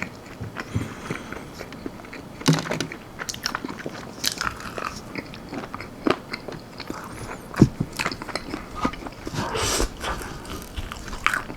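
Close-up chewing and biting of crispy almond-flour-breaded chicken wings: irregular crunches and wet mouth clicks.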